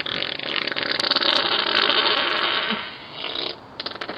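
A long fart picked up through a Ring doorbell camera's microphone: a rapid flutter lasting about three and a half seconds before it fades.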